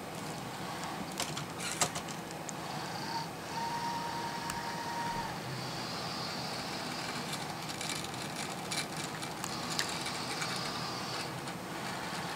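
CRS F3 robotic arm's motors whirring as the arm swings and positions its gripper, with whines that come and go, one steady tone of about a second and a half near the middle, and a few sharp clicks.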